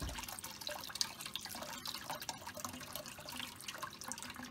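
Thin stream of kitchen tap water running over a hard-boiled egg and fingers as the shell is peeled, splashing into a bowl in the sink with an irregular patter of drips.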